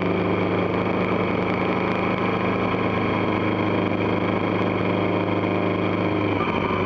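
Motorcycle engine running at a steady cruise with a constant low note, under a haze of wind and road noise; the engine note shifts slightly near the end.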